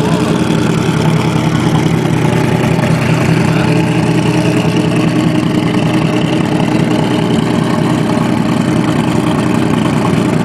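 Ferrari F50's V12 engine idling steadily at the tailpipes.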